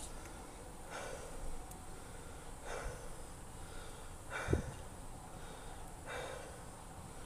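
A person breathing close to the microphone: faint, slow breaths about every second and a half to two seconds, with a soft knock about halfway through.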